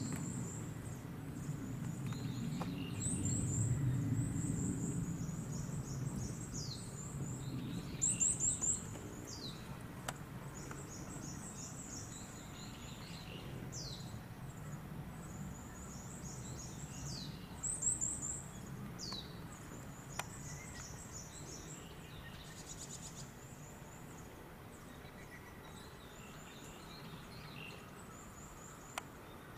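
Small birds calling: quick series of high chirps and short falling whistles, repeated on and off, over a low steady background rumble that fades somewhat after the first few seconds.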